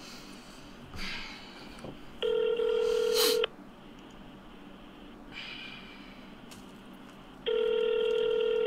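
Telephone ringback tone heard through a phone's speaker: two steady buzzing tones about a second long, a few seconds apart, as the call waits to be answered.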